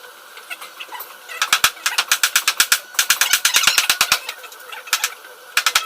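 Rapid runs of sharp cracks, about ten a second, that sound like machine-gun fire: a long run of nearly three seconds and a short burst near the end.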